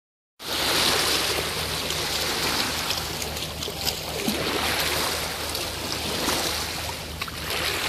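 Shallow stream rushing steadily over stones, starting just after the beginning.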